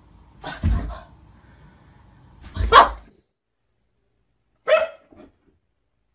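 A Boston Terrier barks twice, about two seconds apart. After a pause, a bulldog puppy gives one short, higher bark.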